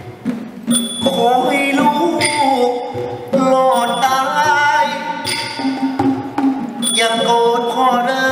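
Thai traditional ensemble music accompanying a likay dance: bending, held melodic lines over sharp accents that recur every second or two.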